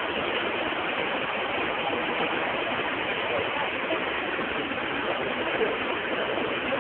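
Steady rushing hubbub of a large crowd of people, many voices blurred into one even din with no single voice standing out.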